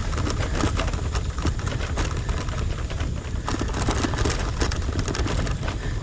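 Bicycle rolling over a rough track: a run of quick clicks and rattles over a steady wind rumble on the microphone.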